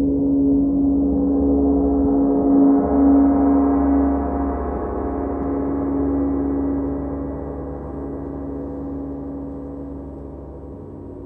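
Several Paiste Bronze gongs played together with soft felt mallets: a dense wash of overlapping ringing tones, one strong low tone sounding through them. It swells to its loudest a few seconds in, then slowly fades.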